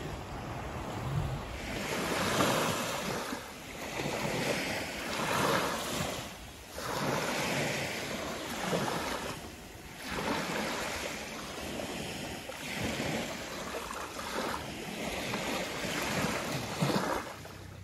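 Small sea waves breaking and washing up a sandy beach, each wash swelling and fading every two to three seconds.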